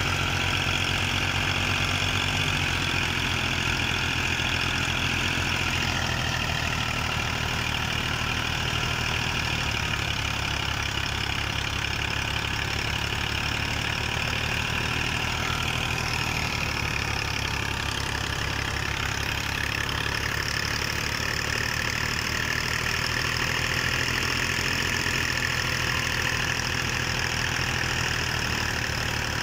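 Fiat 480 tractor's diesel engine running steadily under load, driving a thresher, with the thresher machinery running alongside it. The engine labours hard enough to shake the whole tractor, and the sound stays even without breaks.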